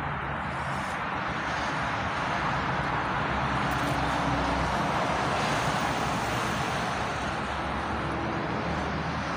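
Steady road traffic noise that swells gently through the middle as a vehicle passes.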